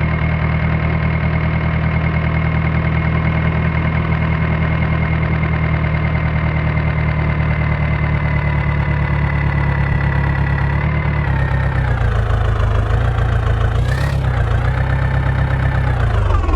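Diesel engine running steadily. About eleven seconds in, its pitch drops a little and then rises and falls unevenly, with a brief sharp click near the end.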